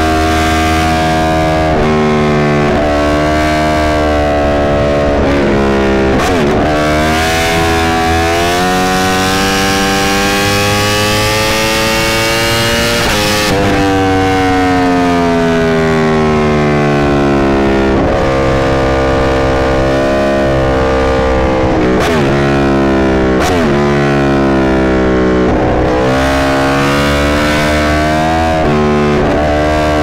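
Yamaha R1's crossplane-crank inline-four engine running at highway speed. Its pitch climbs and falls as the throttle opens and closes, with several sudden drops and dips in pitch at gear changes.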